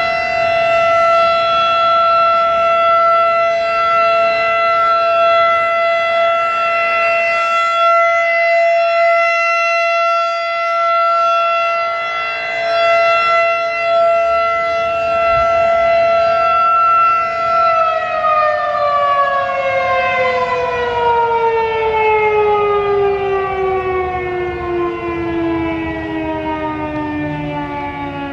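Federal Signal 2001-DC dual-tone electromechanical siren sounding its steady alert tone. About two-thirds of the way through, the power cuts and the pitch falls away as the rotor winds down, marking the end of the alert signal.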